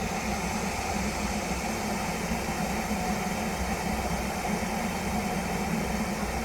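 Russell Hobbs 3000-watt electric kettle heating water: a steady, even rushing hiss with a low rumble as the water comes up toward the boil.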